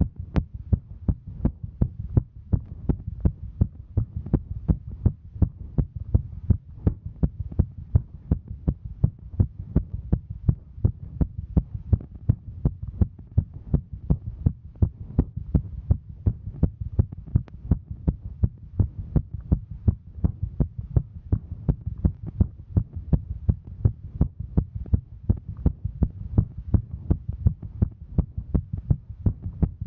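A woman's heartbeat: low thumps in a quick, steady rhythm, her heart raised from hiking.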